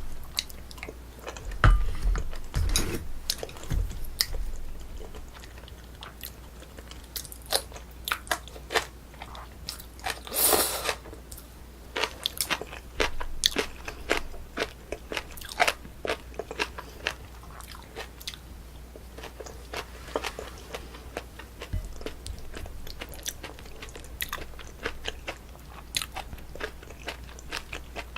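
Close-miked eating sounds of a braised spicy chicken (dak-bokkeum-tang) meal: irregular biting and chewing with many sharp, wet clicks. A longer noisy sound of about half a second comes about ten seconds in.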